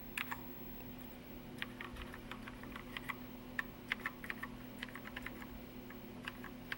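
Keys on a Commodore SX-64 keyboard being pressed one at a time, a string of light, irregular clicks as each key is tested to see whether it registers. A faint steady hum runs underneath.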